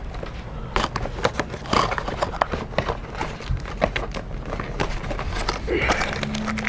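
Keyboard box packaging being handled and pried apart: crinkling and scraping with many scattered sharp clicks.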